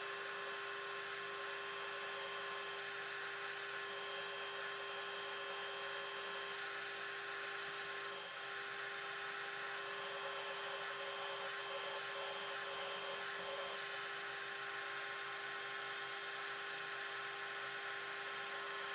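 Metal lathe running steadily while a letter F twist drill in the tailstock bores into the end of a steel shaft, the tapping-drill hole for a 5/16-18 thread. A steady hum with one even tone and a hiss, dipping briefly about eight seconds in.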